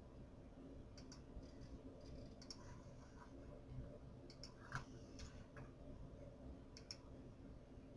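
Near silence: faint room noise with a few scattered soft clicks.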